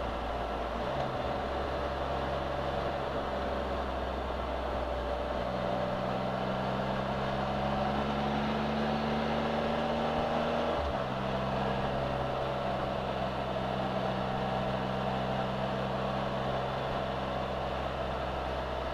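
Can-Am Spyder three-wheeled roadster cruising on a back road, its engine running steadily under a hiss of wind and road noise. The engine note steps up about five seconds in and settles a little lower around eleven seconds.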